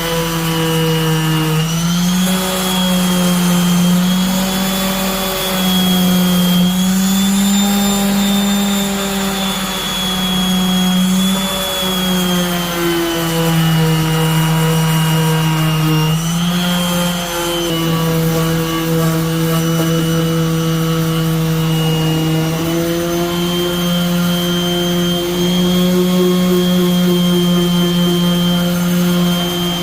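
Dual-action (DA) orbital sander running continuously while sanding cured fiberglass on a car body panel, its motor pitch dipping and recovering every few seconds as it is pressed into the work and eased off.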